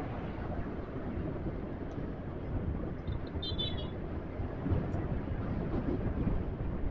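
Motorcycle on the move: steady engine and road noise, with a brief high-pitched tone about three and a half seconds in.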